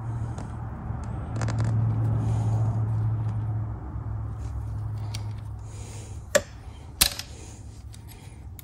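A 7/16 wrench working a brake line flare nut into a brass fitting: scraping and handling noise over a steady low hum, then two sharp metallic clicks about half a second apart near the end.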